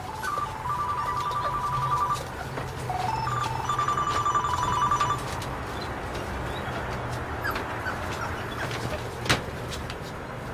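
Electronic ringer trilling in repeated bursts, stopping about five seconds in, over a steady low hum. A single sharp click comes near the end.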